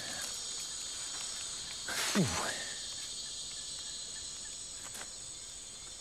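Steady, high-pitched chorus of forest insects, with one brief falling sound about two seconds in.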